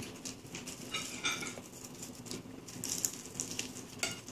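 Soft clicks and smacking mouth sounds of a toddler chewing a seaweed wrap and sucking her fingers.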